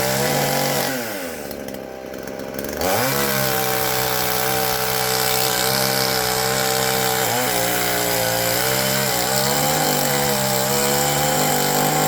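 Petrol Patriot chainsaw running at high revs while making the felling cut through a tree trunk; it drops back toward idle about a second in and revs back up near three seconds, with the pitch wavering under load later on.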